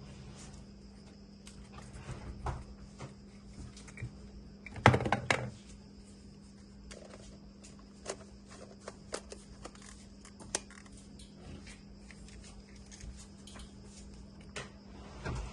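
Unboxing handling noise: scattered small clicks and taps of a camera and its packaging being handled, with a louder clatter about five seconds in and another near the end. A steady electrical hum and a faint high whine run underneath.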